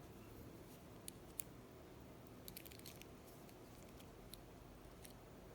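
Faint, scattered light metallic clicks from an old Slaymaker padlock being worked by hand, over near silence.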